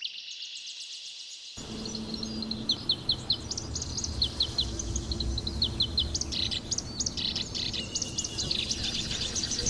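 Songbirds chirping and twittering, a rapid run of short high chirps throughout. A low steady hum joins underneath about a second and a half in.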